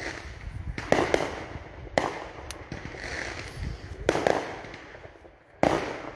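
Fireworks going off: a string of sharp bangs with crackling between them, the loudest about a second in, about four seconds in and near the end.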